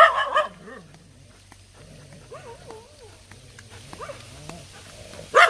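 Dog barking: a loud bark at the start and a drawn-out one near the end, with quieter sounds between.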